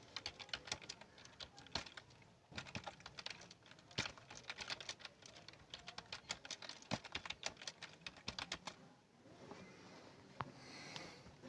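Typing: fast, irregular key taps that stop about nine seconds in.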